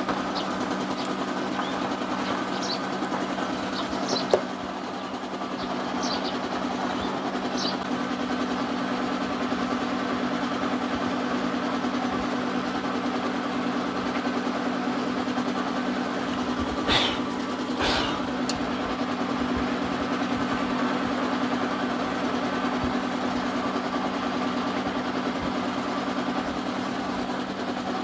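A steady low mechanical hum runs under light metal clicks from hand tools working loose the fittings on a scooter's throttle body, scattered through the first eight seconds. Two sharp knocks come about seventeen and eighteen seconds in.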